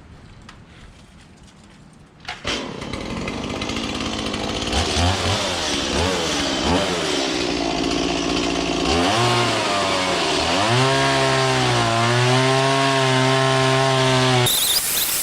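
A chainsaw, which may be trimming the anvil stump, starts a couple of seconds in and runs. Its engine pitch dips and rises, then holds at steady high revs, and it cuts off suddenly near the end.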